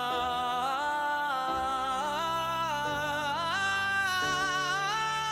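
Background song: a voice holding long notes that step and glide between pitches, over a low bass line.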